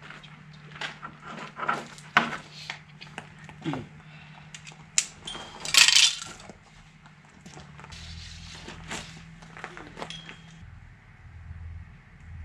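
Scattered clinks and knocks of tools and building materials being handled, with one louder metallic clatter about six seconds in, over a low steady hum.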